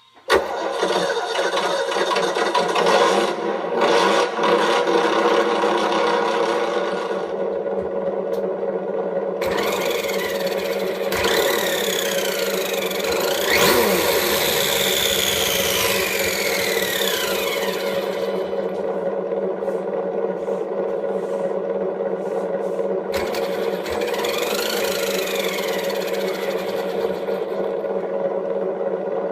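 Simulated engine sound from an ESS-One Plus engine sound unit's speaker on an RC buggy: it starts abruptly and runs at a steady idle throughout. Twice, about a third of the way through and again about three-quarters through, high whines rise and fall in pitch over the idle.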